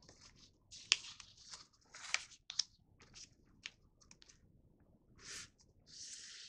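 Sheet of printer paper being folded in half and creased by hand: crisp crackles and rustles, with a few sharp crinkles in the first three seconds and longer sliding rustles near the end as the fold is pressed down.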